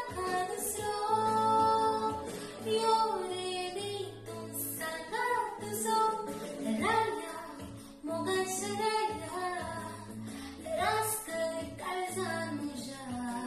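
A woman singing a Konkani song solo over a recorded accompaniment with guitar and a steady bass line.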